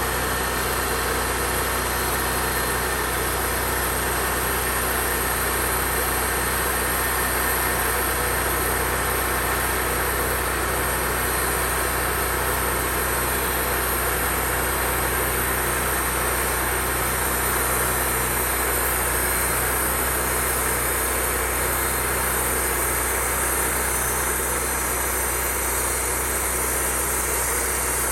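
Sawmill engine running steadily under load as the blade cuts through a pine log to saw boards.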